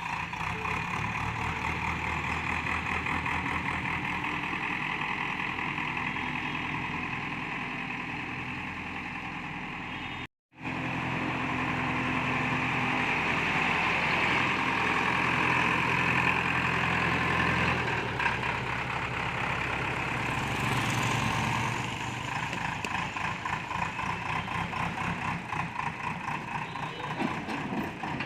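Heavy diesel engine of construction machinery running steadily, its pitch and load shifting as it works. The sound cuts out completely for a moment about ten seconds in.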